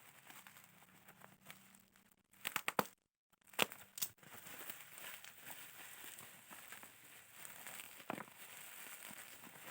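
Parcel packaging being unwrapped by hand: steady crinkling and rustling, with a cluster of sharp tearing crackles about three to four seconds in, split by a moment of dead silence, and another crackle near the end.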